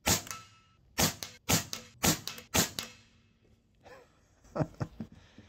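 A PCP air rifle (AEA HP Standard Custom) fires one shot right at the start, followed by a faint ringing. Four sharp clicks then come about half a second apart, with a few fainter clicks a couple of seconds later.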